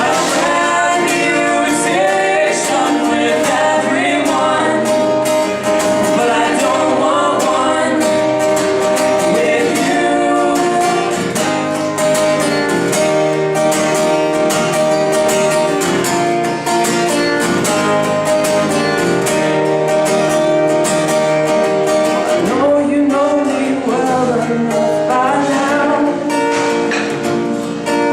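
A band playing a song live: singing over strummed acoustic guitar.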